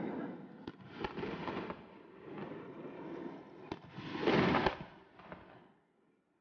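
Aerial fireworks shells bursting, with sharp bangs, rumbling and crackling. The loudest burst comes about four seconds in, and the sound dies away to silence near the end.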